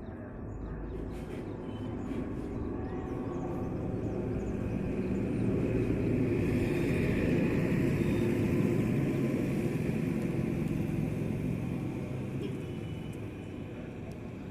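A vehicle passing by: its rumbling noise slowly swells to a peak about halfway through and then fades away.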